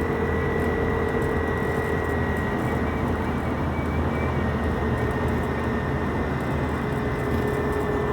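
Steady, unbroken vehicle noise of motorway traffic, with a faint steady hum at two pitches over it.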